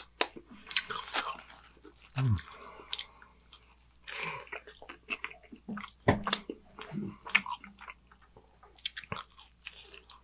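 Close-miked biting and chewing of a slice of pepperoni pizza, with irregular wet mouth clicks and crackles.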